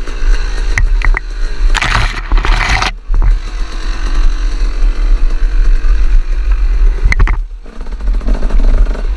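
Dirt bike engine running at varying revs as the bike picks its way through scrub, with branches brushing and scraping against the bike for about a second, around two seconds in.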